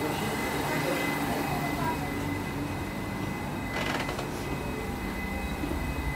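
Dubai Metro train running, a steady noise with a faint high whine throughout, and a short hiss about four seconds in.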